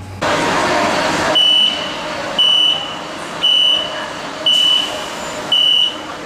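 Shanghai Metro train door-closing warning: a high beep sounds five times, about once a second, signalling that the doors are closing. Before it comes about a second of rushing noise.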